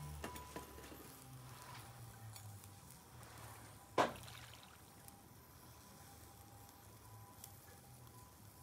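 Chicken gizzard skewers grilling over a charcoal shichirin: faint sizzling and small crackles, with one sharp pop from the coals about four seconds in.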